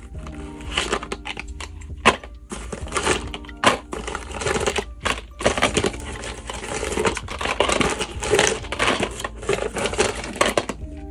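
Cardboard shipping box rustling as it is handled and tipped, with small paperboard contact-lens boxes sliding out and clattering onto a table in a run of sharp knocks and rustles.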